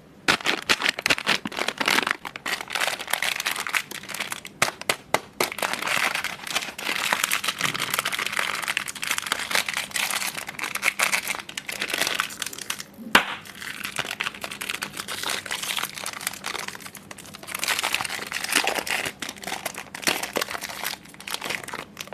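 Chocolate candy wrappers crinkling and crackling as they are handled and torn open, a dense run of small crackles with one sharp snap partway through.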